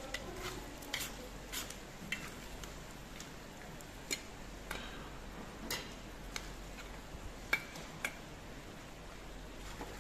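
Perforated metal skimmer clinking and scraping against a cast-iron kazan as plov is turned over and mixed. Irregular sharp clinks come about once or twice a second, the loudest about three-quarters of the way through.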